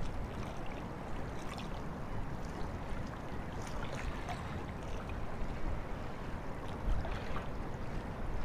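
Wind rumbling on the microphone, with small waves lapping against the bank.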